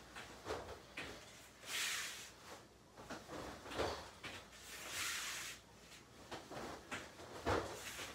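Bare feet thudding dully on foam floor mats as two karateka kick and step back into stance, with short swishes from the kicks going out, at an uneven, self-counted pace.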